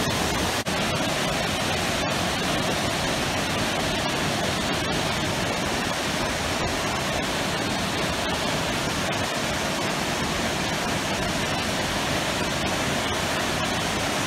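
Waterfall: a steady rush of river water cascading over rock ledges into pools.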